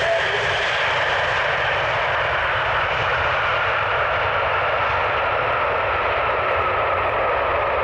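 Boeing 767-300ER airliner's jet engines running loudly through touchdown and the landing rollout: a steady rushing noise with a whine that slowly falls in pitch.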